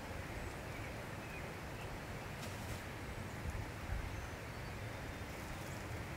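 Outdoor background with a steady low rumble, a few faint, brief bird chirps and some soft rustling.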